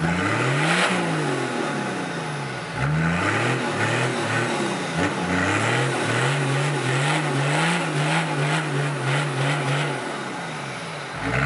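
Toyota Land Cruiser 70's engine revving under load in a mud hole. It rises and falls in repeated blips for the first few seconds, then is held at high revs for about five seconds. Near the end it eases off, then starts to climb again.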